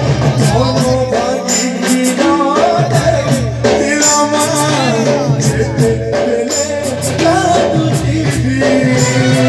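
Live Sambalpuri devotional bhajan music: singing with keyboard melody and drums over a steady beat.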